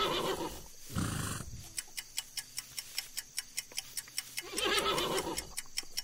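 A horse whinnying at the start and again about four and a half seconds in, with a short noisy burst about a second in. A countdown timer's clock ticks about three times a second underneath.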